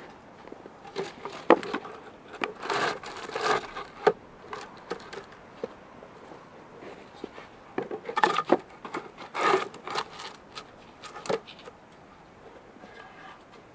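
Wooden logs being set and shifted on a stack between wooden stakes: knocks of wood on wood with scraping and rubbing, in two bouts, about a second in and again around eight to eleven seconds in.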